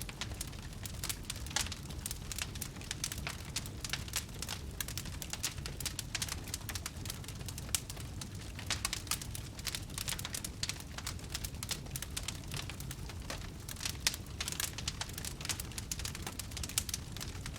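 Wood fire crackling: a steady run of irregular sharp pops and snaps over a low, even rumble of the flames.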